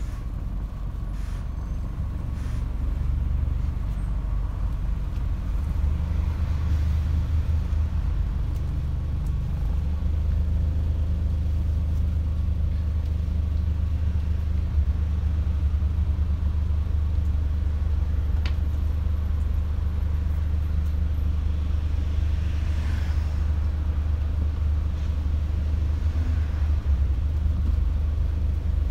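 Scania Omnidekka double-decker bus's diesel engine idling steadily in traffic, heard from inside on the upper deck.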